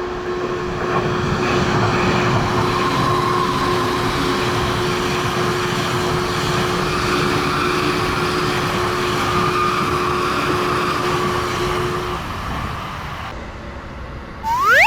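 Electric commuter train running past a level crossing, a steady rush of wheel and running noise with a low steady hum under it that stops about twelve seconds in. At the very end comes a quick rising whistle-like sweep.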